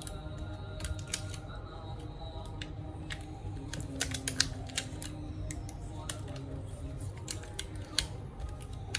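Irregular sharp clicks and taps of small plastic and metal laptop parts being handled during disassembly, coming thickest about four seconds in and again near the end, over a steady low hum.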